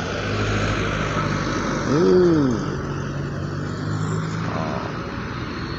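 Mitsubishi Colt Diesel light truck's diesel engine running as it drives past, a steady hum with tyre and road noise. A short voice call comes about two seconds in.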